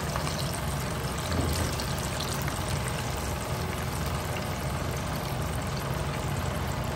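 Hot oil sizzling and bubbling steadily in a frying pan after deep-frying battered chicken, with a steady low hum underneath.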